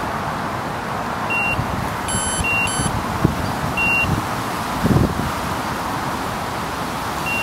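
Electronic carp bite alarms giving short single bleeps, a few high beeps and two of a lower, buzzier tone, over steady wind noise on the microphone with a low gust rumble about five seconds in.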